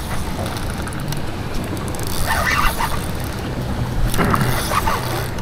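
A boat's engine running steadily at sea, a constant low hum under wind and water noise.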